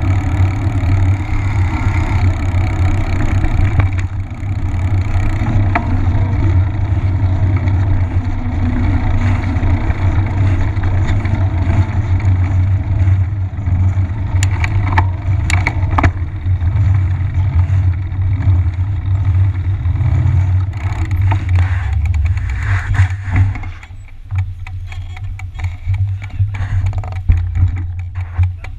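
Steady riding rumble from a fat bike rolling on pavement, picked up by a camera mounted on the bike, with a few clicks. Near the end the bike stops, the rumble drops away and scattered clicks and ticks are left.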